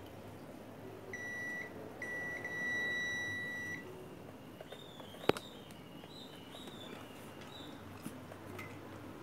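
ANENG Q1 digital multimeter's continuity beeper sounding while its probes are on a transistor's pins: a short beep, then a longer steady one of nearly two seconds, which signals a short between the probed pins. A single sharp click follows about five seconds in.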